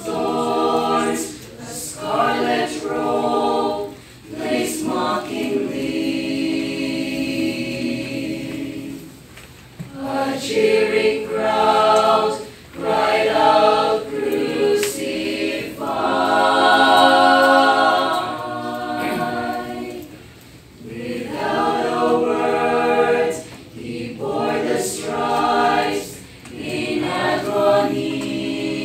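Small mixed choir singing a hymn, phrase by phrase with brief breaks between, a long held chord just past the middle.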